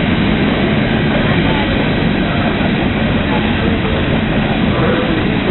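Steam-hauled heritage passenger train rolling past, its carriages' wheels rumbling steadily on the rails.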